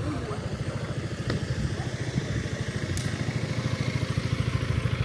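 A motor vehicle engine running close by with an even low throb, with a couple of faint sharp ticks about a second in and near three seconds.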